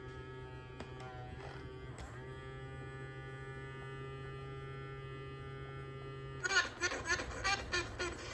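Small electric motor of a Mattel D-Rex robotic dinosaur toy running with a steady buzz, on batteries the owner thinks are weak. The buzz breaks off about six and a half seconds in and gives way to a quick run of clattering clicks.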